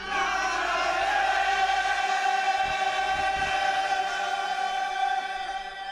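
Group of voices chanting an Arabic religious verse in unison, holding one long note that starts together and fades near the end.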